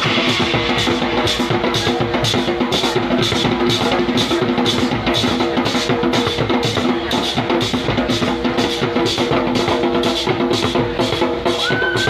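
Live band playing through a PA system: hand drums and a drum kit keep a steady beat over sustained pitched tones.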